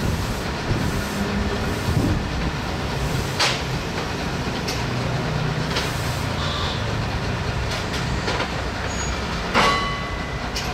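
Steady low rumble of the railway overhead-line maintenance car standing by. Several sharp metallic clanks come from crew working hardware on the overhead catenary wire. The loudest clank, near the end, rings briefly.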